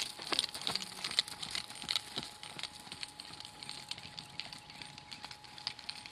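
A saddled horse trotting on arena sand on a lunge line: soft hoofbeats and scattered clicks and rattles, loudest in the first couple of seconds while the horse is closest.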